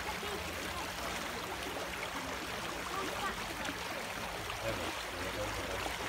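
River water flowing steadily past the bank, an even rushing of running water.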